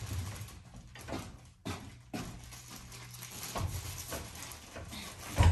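Footsteps and scattered knocks and rustling as insulation is handled, with a loud thump near the end.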